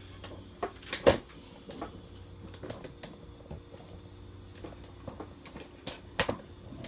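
A few sharp knocks and clicks from handling things at a table, the loudest about a second in and another near the end, over a faint steady hum.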